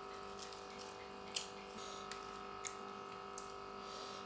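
Eating by hand: a few short, sharp clicks and smacks over a steady electrical hum.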